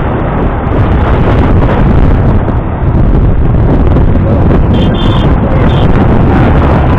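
Loud, steady wind noise buffeting the microphone of a camera riding on a moving motorcycle, with the motorcycle's engine running underneath.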